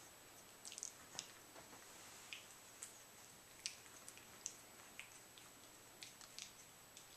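Young soft-coated wheaten terrier puppies mouthing and tussling with each other: faint, scattered small wet clicks and a few short squeaks, at irregular intervals.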